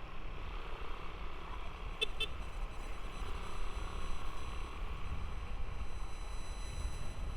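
Motorcycle ride: steady wind rumble on the neck-mounted action camera's microphone over engine and traffic noise, with two quick horn beeps about two seconds in.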